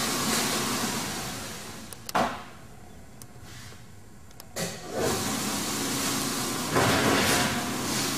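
Clean Cut flatbed die cutter making a test cutting pass on corrugated board. It runs with a steady mechanical hum, gives a sharp clunk about two seconds in and drops quieter, then clicks and runs again through the second half.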